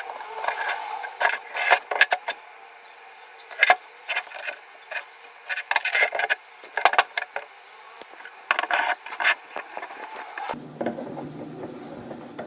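Irregular metal clicks and knocks of hand tools and steel parts being handled on a cast iron vise while a long through-bolt rod is fitted and tightened. A steady low hum sets in near the end.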